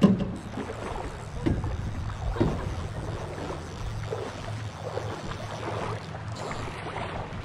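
River water sloshing and splashing around a wading angler's legs while a sockeye salmon is played on a bent rod, with wind buffeting the microphone. A sharp knock comes right at the start, and a smaller one about two and a half seconds in.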